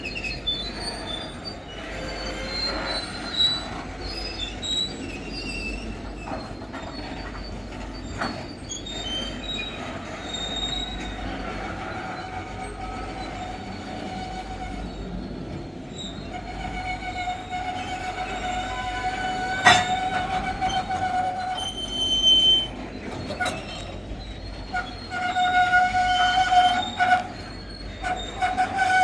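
Metre-gauge freight train rolling past, its wheels squealing on the rails in long high tones that come and go, with scattered clicks and knocks from the wagons and one loud sharp knock about twenty seconds in.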